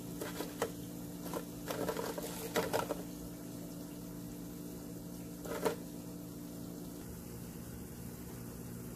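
Crisp, ghee-fried bread triangles crackling as they are handled by hand, in a few short bursts in the first three seconds and once more about five and a half seconds in, over a steady low mechanical hum.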